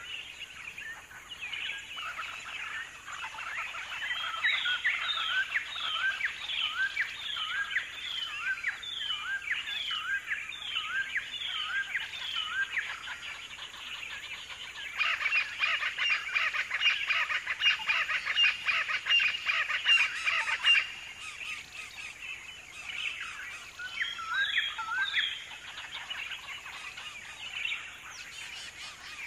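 Wild birds calling: a run of repeated chirping notes, about two a second, then several seconds of dense, fast chatter, then a few scattered calls near the end.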